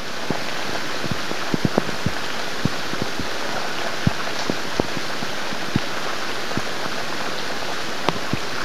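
Steady heavy rain falling, with irregular sharper taps from nearby drops about every half second.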